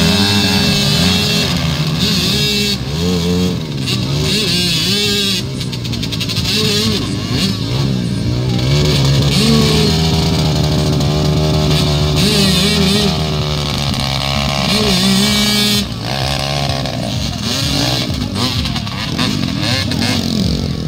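Several dirt bike engines revving hard and unevenly, their pitch rising and falling again and again, as the bikes bog down and spin their rear wheels in deep mud.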